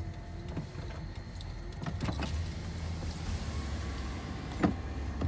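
Car engine running, heard from inside the cabin, with a few sharp clicks as the side mirror is folded in: two close together about two seconds in, and one louder near the end.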